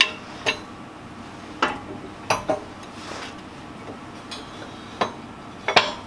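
Metal parts clinking and knocking together as they are handled and set in place, about eight sharp, irregularly spaced hits with the loudest near the end.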